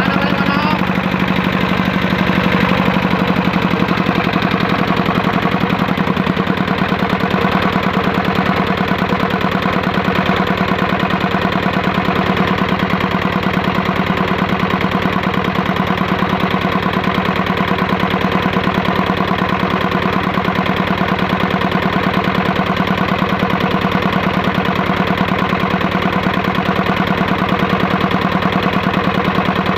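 Single-cylinder 'dompeng' diesel engine running steadily, a rapid, even beat of firing strokes. Its low hum shifts slightly about six seconds in, then holds steady.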